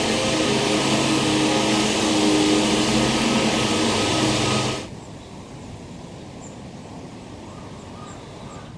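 A motor vehicle's engine running steadily with a loud hum. It cuts off abruptly about five seconds in, leaving a much quieter, even background noise.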